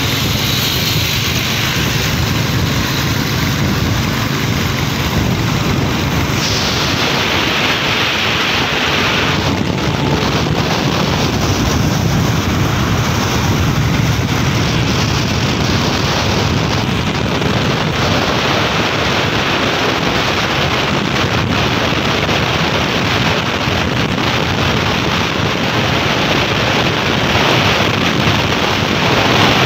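Steady rush of wind buffeting the microphone while riding a motorcycle at speed on a highway, with engine and road noise underneath; it swells a little near the end.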